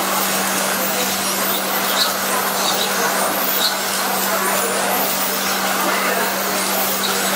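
Radio-controlled touring cars racing on an asphalt track, their motors whining up again and again as they accelerate out of corners, over a steady low hum.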